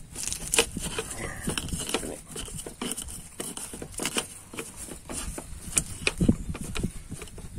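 Stone pestle pounding and grinding in a shallow wooden mortar (ulekan and cobek), crushing chilies, salt and peanuts: irregular knocks and crunching with no steady beat.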